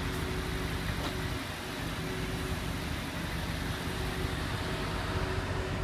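A car engine idling steadily: an even, unchanging hum.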